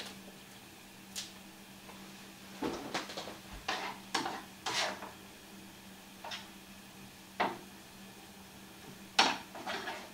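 A spoon scraping and tapping against a pan as rice is stirred and reheated on the stove top, to keep it from sticking to the bottom. It comes as a string of short scrapes and clinks, the loudest about nine seconds in, over a faint steady hum.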